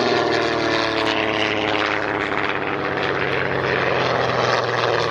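Propeller aircraft's de Havilland Gipsy Six inline six-cylinder engine running under power in a flypast, a steady drone whose pitch falls slowly as it passes.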